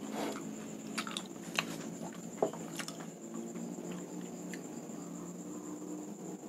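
A person chewing a crunchy mouthful of toasted bread and barbecued crickets, with a few crisp crunches in the first three seconds, over a faint steady hum.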